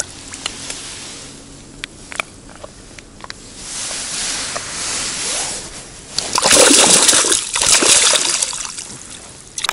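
A caught fish splashing and thrashing in a mesh keepnet in the river. The loudest splashing comes about six seconds in and lasts a couple of seconds, after a few clicks of handling.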